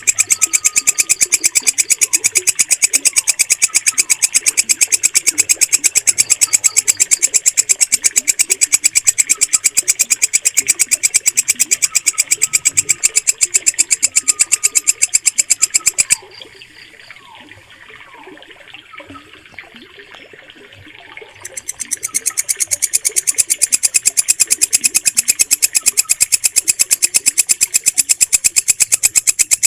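Walang kecek, a green katydid, stridulating in a rapid, even, high-pitched pulsing trill. It stops for about five seconds past the middle, then starts again, with fainter chirping underneath throughout.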